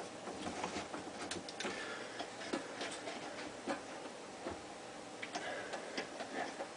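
Irregular light clicks and taps as a Badger garbage disposal is turned by hand on its sink mounting ring, tightening it clockwise.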